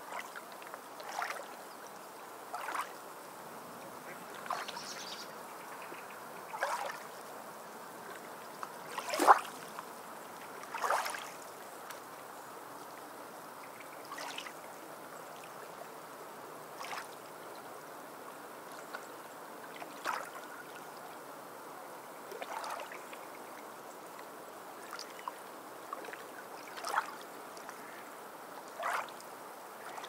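Water gently lapping and splashing: short, irregular splashes every second or two over a soft steady hiss, the loudest about nine seconds in.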